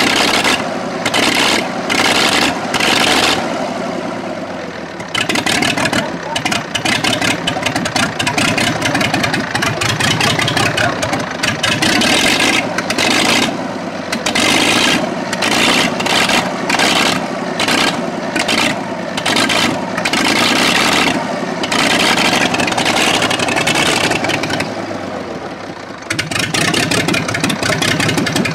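Old tractor diesel engine running with its bonnet off, cold-started and smoking heavily, revved up and down in repeated surges; its speed sags back twice, about four seconds in and again near the end.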